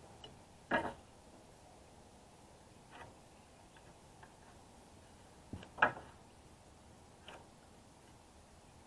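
Small sharp clicks and light knocks of hand tools handled on framing lumber while stud positions are marked out, with two louder knocks, one about a second in and one near the six-second mark, and fainter taps between.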